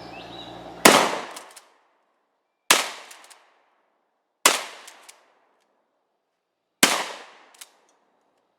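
Four 12-gauge shotgun shots spaced about two seconds apart, each sharp blast trailing off in a short echo, with a faint click after the last.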